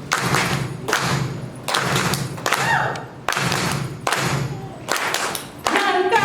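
A steady rhythm of heavy percussive thumps, about one every 0.8 seconds, each with a short noisy tail.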